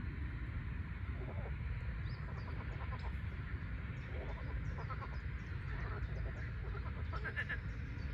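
A chorus of frogs calling: many short, repeated croaking calls overlapping, growing busier toward the end, over a steady low rumble.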